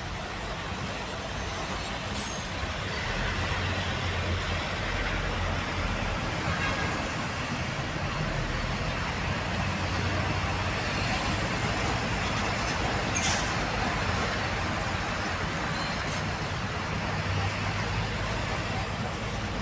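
Steady engine hum and road noise from inside a large vehicle's cab moving slowly in heavy highway traffic.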